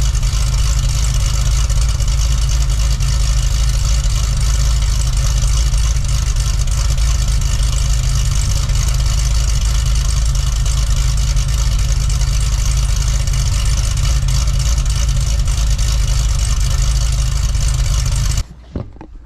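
Cadillac CTS-V Wagon's supercharged 6.2-litre V8 idling steadily through the factory mufflers with the exhaust cutouts closed, running evenly after a spark plug wire that was arcing was dealt with; the owner takes the misfire as cured. The sound cuts off suddenly near the end.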